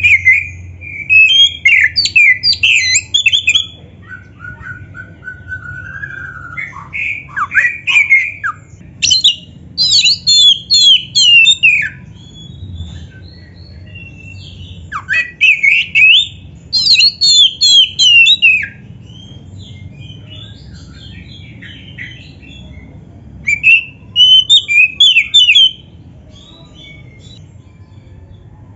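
Male oriental magpie-robin singing in four loud bouts of varied whistled phrases and rapid high trills, with pauses of a few seconds between bouts.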